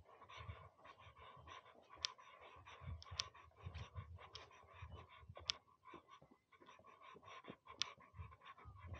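Faint footsteps and rustling of someone walking across a grassy meadow and onto a dirt path, with scattered sharp ticks and soft low thumps in walking rhythm.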